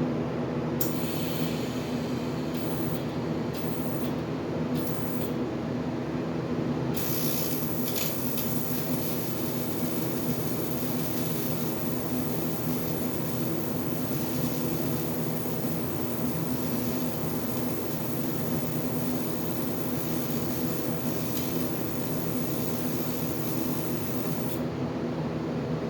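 Die grinder running steadily, grinding corrosion out of cracks in an old aluminum bracket to prep them for TIG welding. A high hiss cuts in and out several times in the first seven seconds and again near the end.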